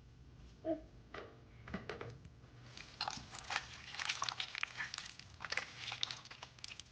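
Slime being squeezed and worked by hand, giving many small wet clicks and crackles that grow denser from about three seconds in.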